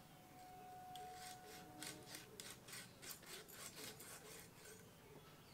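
Faint rasping strokes, about three to four a second, of a blade sawing through a large stingray's flesh and its rough, sand-like skin as the fish is cut into pieces.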